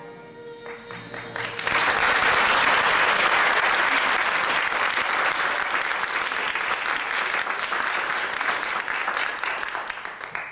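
Audience applauding. The clapping swells in about two seconds in as the last held chord of the music dies away, then cuts off abruptly near the end.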